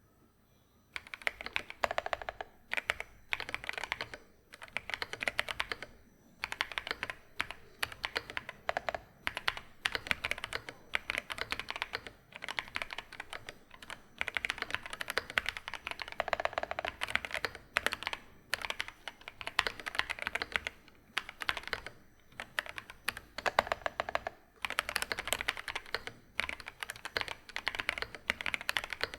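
Typing on an Epomaker Split 65 mechanical keyboard (top-mount, PC plate, foam-dampened) with stock Epomaker Flamingo linear switches and PBT Cherry-profile keycaps. Rapid keystrokes come in bursts of a few seconds with short pauses between them, starting about a second in.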